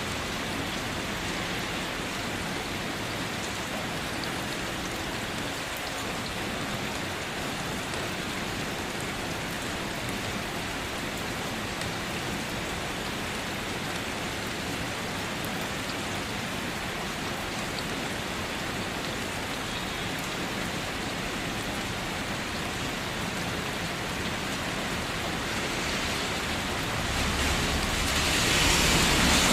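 Steady rain falling, an even hiss of drops on surfaces, swelling louder near the end.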